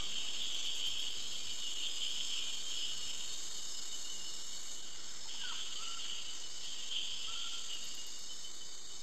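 Steady chirring of insects, with a few short whistled notes about five and seven seconds in.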